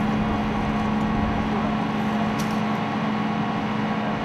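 Diesel engines of Marine LAV light armored vehicles idling, a steady hum.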